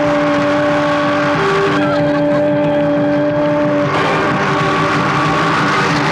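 Engines of a convoy of auto-rickshaws running together at speed. For the first four seconds, long steady tones are held over the engines, switching pitch briefly about a second and a half in.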